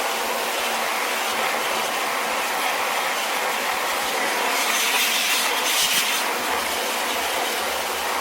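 Pressure washer spray hissing steadily against corrugated barn tin, over a steady low hum. About four and a half seconds in it turns louder and brighter for a second or so, then settles back.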